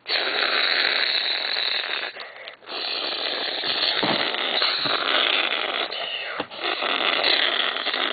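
Novelty talking alarm clock playing a harsh, hissing noise effect through its small speaker between its spoken lines, with brief dips about two and a half and six and a half seconds in.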